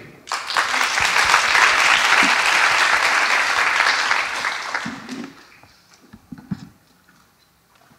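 Audience applauding: dense clapping that dies away about five seconds in, followed by a few small knocks and clicks.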